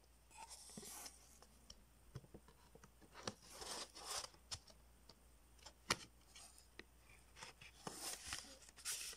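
Faint handling noise of a CD and its cardboard packaging: scattered clicks and taps, with a few brief sliding, rustling scrapes as the card case is opened and the booklet is slid out. A sharp click stands out about six seconds in.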